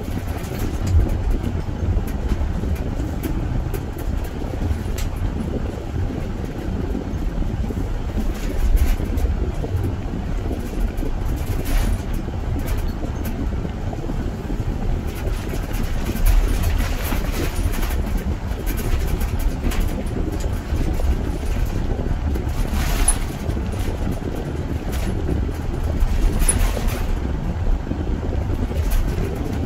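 A car driving along the road: a steady low rumble of engine and tyres, with a few brief swells of higher hiss about halfway through and near the end.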